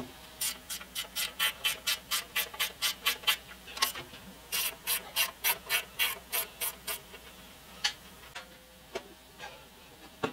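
Ratchet wrench clicking in two runs of steady, even clicks, about four a second, as the bolts holding a Swan twin-cylinder air compressor pump to its base plate are loosened. A few single metal knocks follow near the end.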